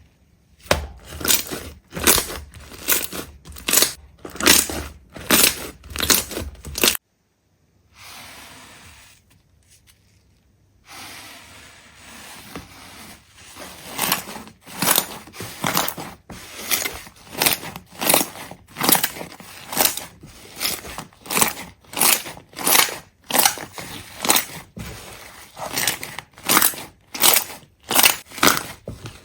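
Crunchy material being crushed in rapid repeated strokes, about two a second. About seven seconds in they stop for a moment of silence and a few seconds of softer handling sound, then the strokes resume.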